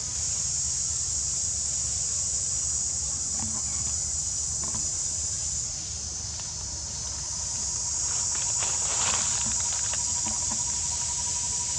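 Steady high-pitched insect chorus droning without a break, over a low rumble, with a few faint clicks about two-thirds of the way through.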